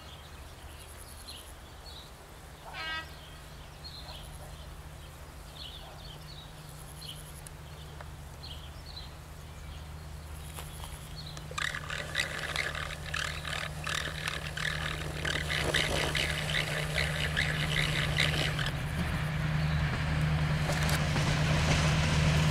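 A Romanian diesel-hydraulic locomotive's engine running as a steady low hum, with small birds chirping over it. About halfway through, a dense rattling of wheels and engine sets in and grows steadily louder as the train approaches.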